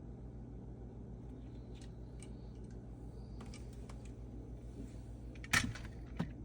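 Scattered light clicks and taps over a steady low hum, then a sharp knock about five and a half seconds in and a smaller one just after.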